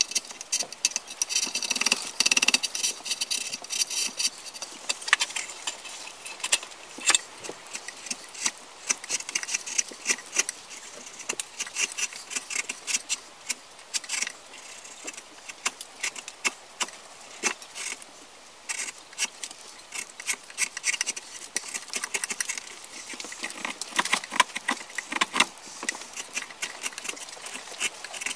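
A hand carving chisel paring and scraping a wooden kuksa blank held in a vise: a run of short, irregular cutting strokes and scrapes.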